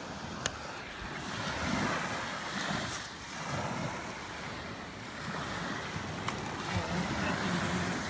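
Surf washing onto the beach in slow swells, with wind on the microphone. A couple of sharp clicks sound, one near the start and one later on.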